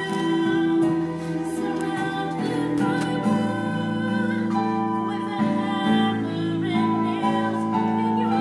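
A woman singing a slow, gentle lullaby-like song over soft instrumental accompaniment.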